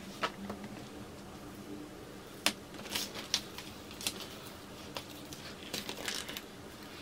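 Excess heat transfer vinyl being weeded off a cutting mat: the plastic film crinkles as it is peeled up, with scattered sharp ticks of the weeding hook, the sharpest about two and a half seconds in.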